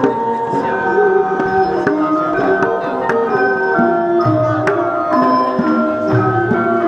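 Percussion ensemble music: tuned struck instruments, xylophone- and gong-like, play a running melody over repeated low drum strokes.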